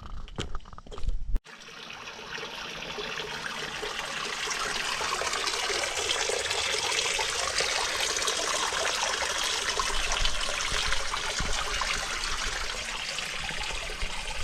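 A few short knocks in the first second or so, then, from about a second and a half in, a steady rush of running water that swells over a few seconds and then holds.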